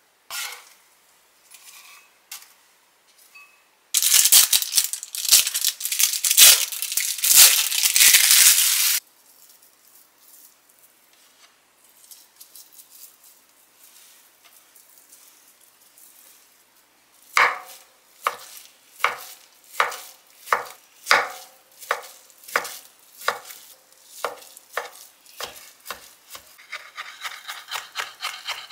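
Kitchen knife chopping imitation crab sticks on a wooden cutting board: separate strokes a little under a second apart, speeding up into rapid chopping near the end. Earlier, a loud rustling lasts about five seconds.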